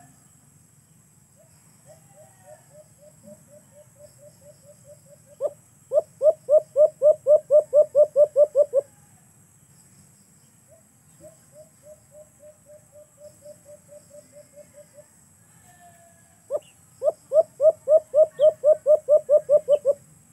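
Dove calling in two phrases. Each is a soft run of quick repeated notes that breaks into about a dozen loud notes at about four a second, with a pause of a couple of seconds between them.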